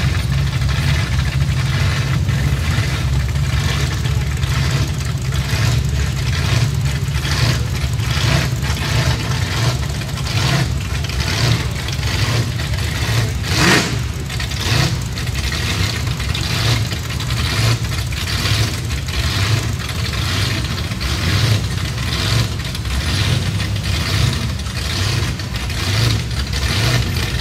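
Car engines idling and burbling as a slow queue of cars creeps past, among them a lowrider, a late-model Holden Commodore and a Ford F100 pickup. The low rumble is steady, with one brief louder burst about halfway through.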